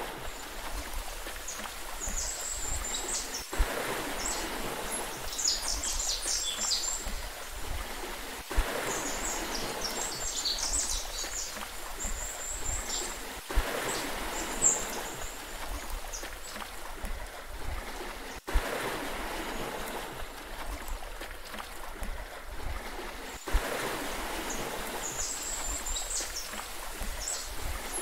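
Steady rush of water with clusters of high bird chirps every few seconds. A short sharp click comes about every five seconds.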